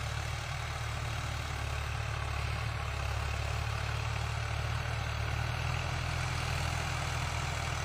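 Tractor engine running steadily, a low, even hum.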